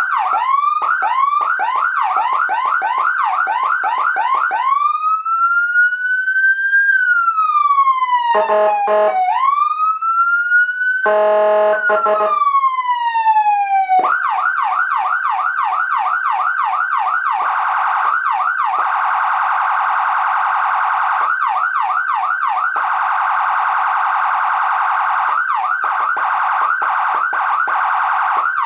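Whelen 295HFSA5 200-watt electronic siren stepping through its tones. It opens with a yelp of quick rising sweeps, about three a second, then slow rising and falling glides broken by two short buzzing horn blasts about 8 and 11 seconds in. From about 14 seconds it switches to fast sweeps that speed up into a rapid phaser-like warble.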